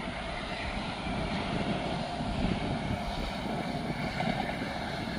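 Steady outdoor rumble of traffic on a nearby highway, mixed with wind buffeting the phone's microphone.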